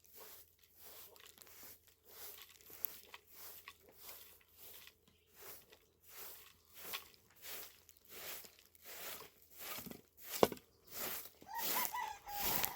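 Crunching steps on dry, gritty ground, about two a second. A short wavering animal call comes near the end.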